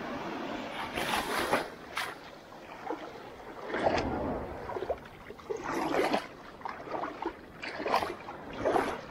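Sea water splashing and sloshing close to the microphone in irregular bursts, about a second apart, as someone wades out through small breaking waves.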